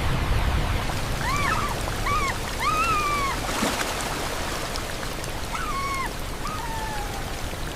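Puppy whimpering in a series of short, high whines over steady rushing water. One whine is longer, and a later one slides downward.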